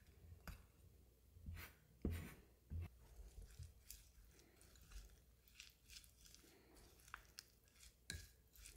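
Wooden spoon stirring a wet seasoning mix of sliced green onion and sesame seeds in a small glass bowl: faint squelching and crunching with scattered light taps of the spoon against the glass.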